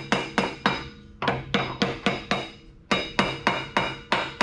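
Hammer blows on a steel seal driver, tapping a new main shaft seal into a pumping-unit gearbox housing. Sharp metallic strikes come about three a second in short runs with brief pauses, and each one rings.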